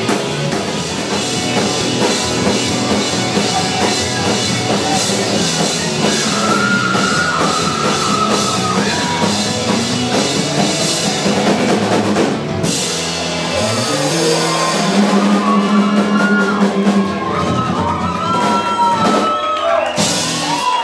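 Rock band playing live and loud, with a full drum kit and distorted electric guitars. A little past halfway the dense beat drops away to long held chords and sliding guitar notes.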